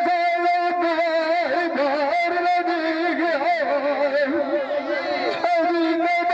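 Saraiki folk dholay music: a held drone with a quick, steady beat. Between about one and a half and five and a half seconds in, a wavering, bending melody rises over it, then the plain drone and beat return.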